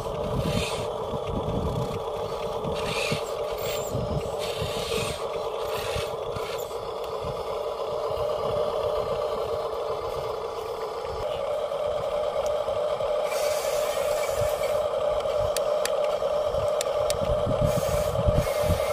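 Steady whine of the small electric motors in Huina radio-controlled toy construction vehicles, over scraping and crunching as the toy bulldozer's tracks work in sand against a log. The whine steps up in pitch and grows louder about eleven seconds in.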